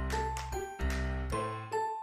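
Background music: bright chiming, bell-like notes in a light rhythm over a bass line that drops out about a second and a half in.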